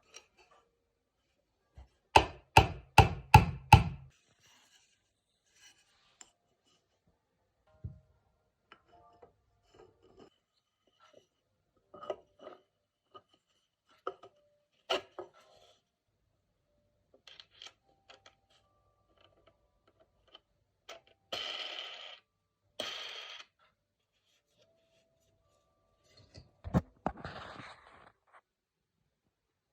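Hard objects being handled and knocked: a quick run of five sharp knocks about two seconds in, then scattered clicks and taps, two short scraping rubs a little past the middle, and a last knock with a scrape near the end.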